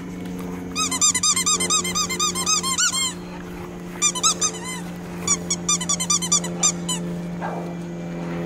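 Red rubber squeaky ball squeezed over and over by hand, giving quick runs of short high squeaks, about six a second, in three bursts. A steady low hum lies beneath.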